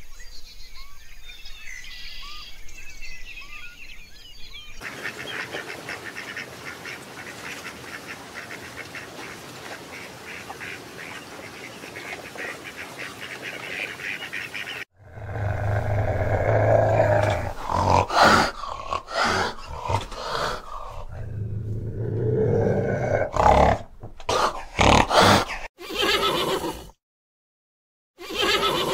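A run of animal sounds: thin bird chirps for the first few seconds, then a dense, fast-pulsing buzzing chorus, and from about halfway a large animal's loud, deep roars and grunts in several calls, which are the loudest part. The sound stops suddenly a second or two before the end, and one more short call follows.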